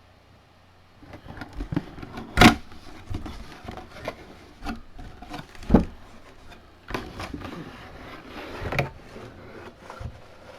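Handling and unpacking noise from a boxed mini football helmet: irregular knocks, clicks and scraping rustles of the packaging, with two louder knocks about two and a half and six seconds in.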